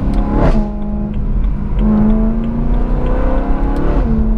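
Modified BMW M3 E92's V8 engine heard from inside the cabin while driving. About half a second in there is a quick rev jump that falls straight back. The note then climbs under acceleration and drops suddenly at a gear change about four seconds in.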